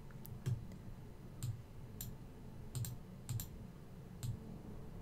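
Irregular clicks of a computer mouse and keyboard, about nine in five seconds, some with a dull thud of the desk beneath.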